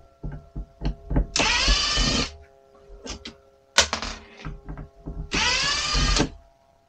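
A cordless drill run overhead in two short bursts, each about a second long, rising in pitch as the motor spins up. It is driving fasteners into a ceiling panel. Small clicks and knocks of handling come between the runs.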